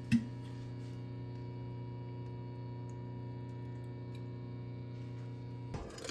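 Induction cooktop humming steadily under a pan, a stack of even electrical tones. A sharp knock right at the start and a brief clatter near the end.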